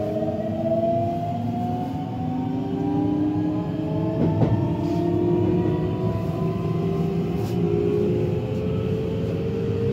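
Keihan 7000 series train's Toyo IGBT-VVVF inverter and traction motors whining as the train accelerates, several tones climbing slowly in pitch over a steady running rumble, heard from inside the car. A single sharp click comes about four seconds in.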